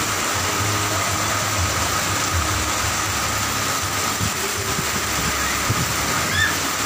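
Steady rushing noise of heavy rain and fast-flowing muddy floodwater.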